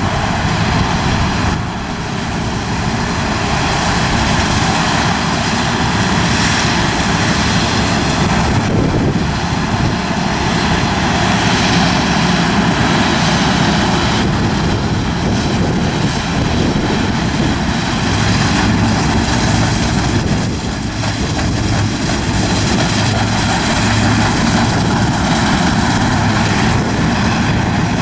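New Holland combine harvester working under load while cutting rapeseed: a loud, steady drone of engine and threshing machinery, dipping briefly about two seconds in and again around the 21-second mark, with a steady low hum joining in the last third.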